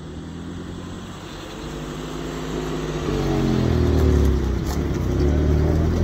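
Ute engine running as the vehicle drives up and past on a dirt track, growing louder as it nears and is loudest as it goes by close, the engine note rising about halfway through.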